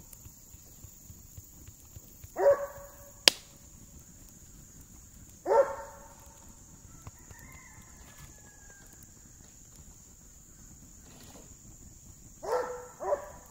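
A dog barking in single short barks, a few seconds apart, with a quick double bark near the end. One sharp snap about three seconds in.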